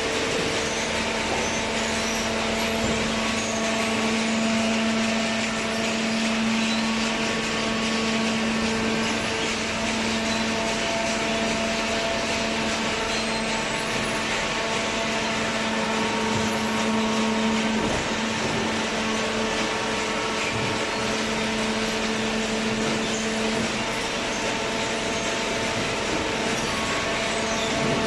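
Horizontal cardboard baler running: a steady machine hum with a few held tones over a hiss, the lowest tone fading out near the end.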